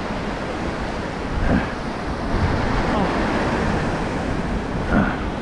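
Ocean surf washing and breaking over rocks in a steady rush, with wind buffeting the microphone.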